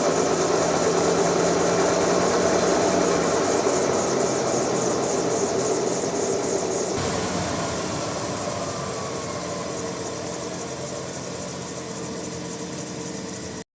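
Chevrolet Aveo wheel and drivetrain spinning with a loud steady droning hum. About halfway through it starts slowly winding down, with a falling whine as it slows, then cuts off near the end. The hum is blamed on a damaged wheel bearing.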